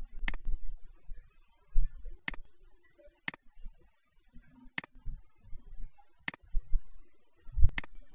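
Computer mouse button clicking: about six sharp single clicks spaced one to two seconds apart, each one placing a pen-tool anchor point, with soft low thumps in between.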